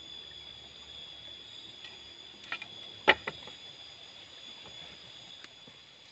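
Steady, high-pitched night insect chorus, with a few sharp clicks about two and a half and three seconds in.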